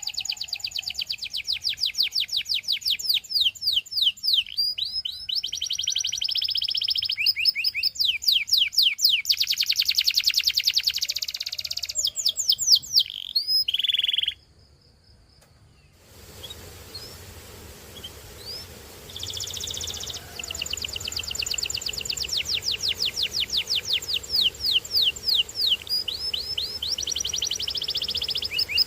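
Domestic canary singing in long, fast trills of repeated falling notes and rolled tours. The song breaks off about halfway, comes back with a few scattered notes, then resumes in full trills for the last third.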